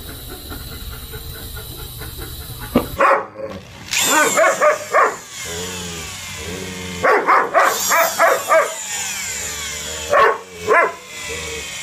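A husky vocalizing in three groups of short, pitched yowling barks, the first starting about three seconds in. Before that, a steady low hum with faint ticking.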